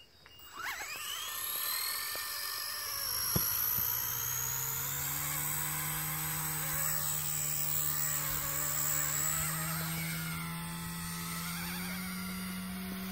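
Small electric RC helicopter's motor spooling up with a rising whine about half a second in. It then runs at a steady high whine, with a lower rotor hum that comes in a few seconds later and rises slightly in pitch near the end as the helicopter flies.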